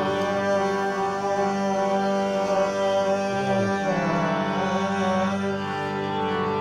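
Hindustani light-classical music, a thumri in raga Pilu: a harmonium holds sustained notes under a slow melody that slides between pitches.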